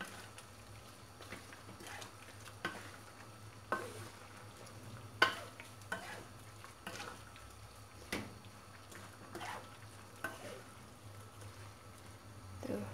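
Wooden spatula stirring vegetables in a wok, with short scrapes and knocks against the pan about once a second over a faint sizzle of frying. A low steady hum runs underneath.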